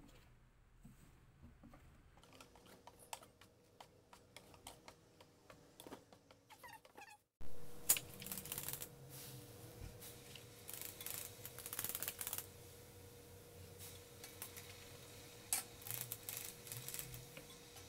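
Wire balloon whisk stirring thin batter in a stainless steel bowl, its wires clicking and scraping against the metal in quick runs. After about seven seconds the clicks grow louder and a faint steady hum joins them.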